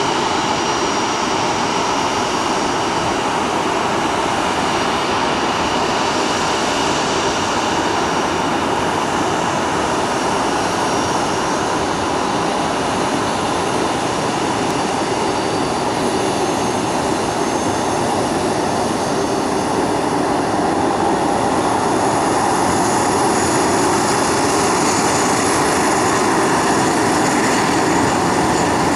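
Jet engines of a taxiing Airbus A330-200 running at taxi power: a steady rush with a high whine. In the last several seconds the whine grows stronger as a Bahamasair Boeing 737 taxis close by.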